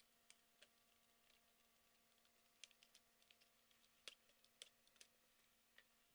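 Faint, irregular plastic clicks and ticks as the plastic lens and housing clips of a GMC Envoy instrument cluster are pried apart with a screwdriver and handled, over a faint steady hum.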